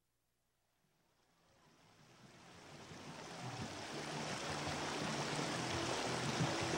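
Stream water rushing over rocks, fading up from silence over the first few seconds into a steady rush.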